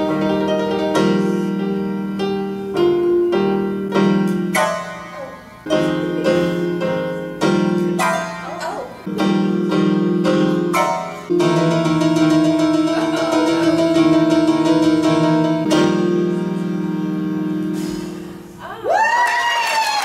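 Electronic keyboard played in a piano voice: chords struck and held in phrases, with a few short breaks. Near the end the playing stops, a whoop rises from the audience and clapping begins.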